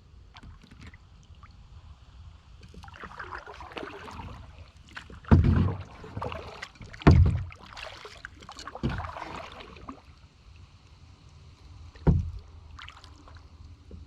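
Kayak being paddled: water splashing with the strokes and three heavy knocks on the hull, about five, seven and twelve seconds in.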